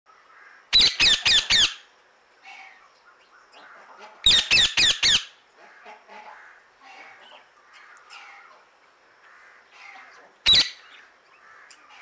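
Indian ringneck parakeet (rose-ringed parakeet) giving loud, harsh screeching calls: a quick run of four near the start, another run of four about four seconds in, and a single call near the end. Softer chirps come in between.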